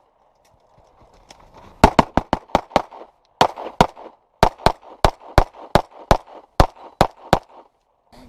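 Handgun shots fired in rapid strings, about twenty in all, starting after a second and a half of silence, with short pauses between strings.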